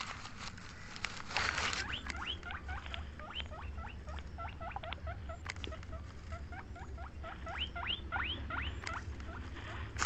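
A long run of short, rising chirps from a small animal or bird, two or three a second, with a burst of newspaper rustling about a second and a half in.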